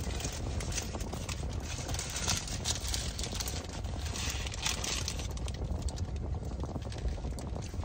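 Paper food wrappers and a paper takeout bag crinkling and rustling in the hands in irregular little crackles, over a steady low rumble.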